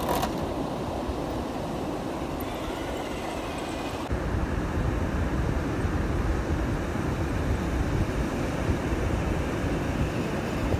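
Steady rumble of ocean surf and wind buffeting the microphone, louder after about four seconds in. Before that, a faint high whine rises and falls, the electric motor of a small RC crawler truck.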